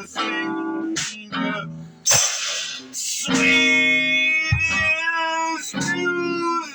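Music: a guitar playing notes and chords, changing about once a second.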